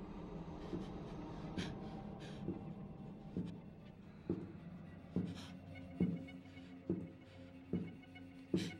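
Slow, even thuds about once a second over a low, steady drone, some of the thuds carrying a scratchy click: tense horror-film sound design.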